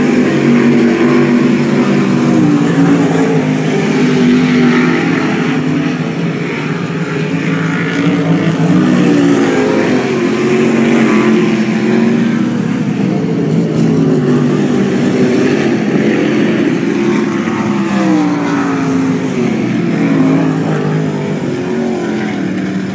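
Several non-wing sprint car engines racing on a dirt oval, their overlapping notes rising and falling as the cars accelerate and back off through the turns.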